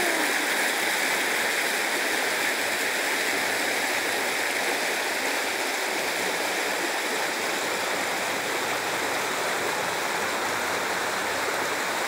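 River rapids: water rushing steadily over rocks.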